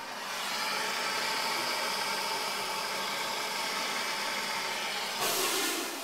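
Steady hissing of water refilling a Sloan Flushmate pressure-assist vessel in a toilet tank, with a brief louder rush of noise near the end.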